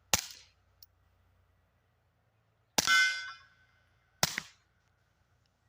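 Three suppressed shots of 147-grain subsonic 9mm from a Taurus G3 Tactical pistol fitted with a SilencerCo Octane 9, a second or two apart. The second shot is the loudest and is followed by a ringing metallic clang.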